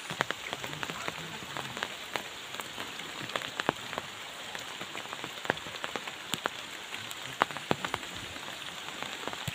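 Rain falling, with irregular sharp drops tapping close by over an even hiss.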